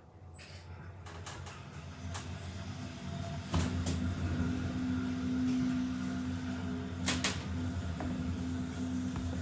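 Otis Gen2 gearless elevator car starting down and travelling: ride noise builds over the first few seconds into a steady low hum, with a few sharp clicks along the way, two close together about seven seconds in.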